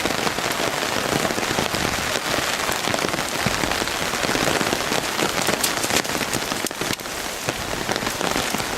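Heavy rain falling steadily: a dense, even hiss of many small drop ticks.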